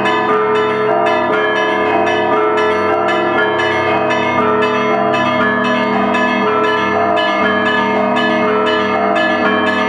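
Russian Orthodox bell ringing of the Pskov-Caves Monastery bells: small bells struck in quick succession, about three or four strokes a second, over the steady, sustained ringing of the larger bells.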